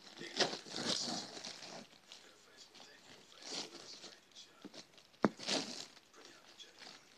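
A cat rummaging in a clear plastic bag, the thin plastic crinkling and rustling in several irregular bursts, with a sharp click about five seconds in.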